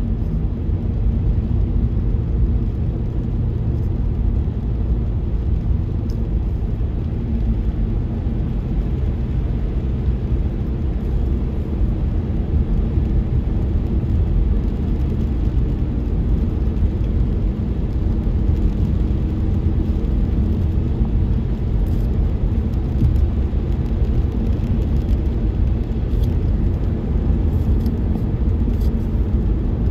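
Car driving along a wet road, heard from inside the cabin: a steady low rumble of engine and tyres.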